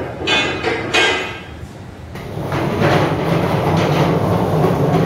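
A few sharp metallic clanks with a ringing tone from steel rigging gear, then from about two seconds in a steady low rolling rumble, typical of machine-skate rollers carrying a heavy load over a concrete floor.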